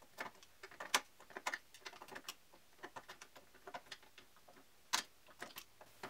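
Irregular small metallic clicks and scrapes of a tool being worked around the outer edge of a Master Lock 1590D padlock body, peeling the rim back to get the back plate off. A sharper click about a second in and another near the end.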